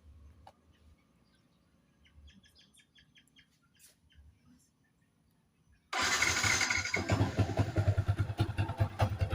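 A short run of faint bird chirps, then about six seconds in a Yamaha Vixion's single-cylinder engine abruptly starts running loudly with a pulsing beat. The bike has a rough noise from the clutch side, which the mechanic suspects comes from a worn bearing.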